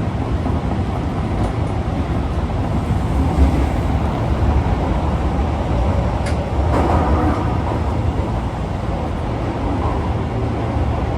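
Osaka Metro 22-series subway car running, heard from inside: a steady low rumble of wheels and running gear, with a brief sharper clatter about six seconds in.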